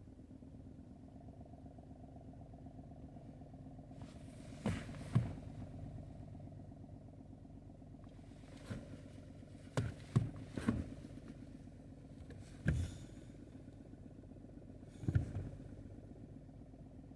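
1.0 TSI three-cylinder turbo petrol engine idling steadily, broken by irregular short, sharp knocks, several in the middle stretch: the weird sound the owner is asking about.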